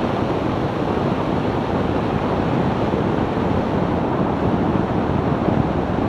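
Steady rush of wind and road noise from a 2002 BMW E46 330ci driving along at an even cruising speed, with no engine note standing out.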